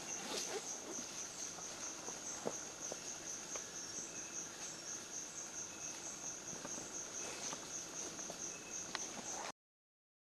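Forest insects chirring in a steady, high-pitched trill, with faint scattered clicks and rustles beneath. It cuts off suddenly near the end.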